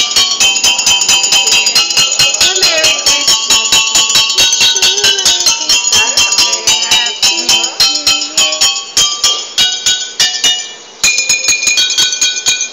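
Water bottle xylophone struck in a quick, steady rhythm, each bottle ringing a bright note of its own pitch as a tune is played. There is a brief break near the end before the playing resumes.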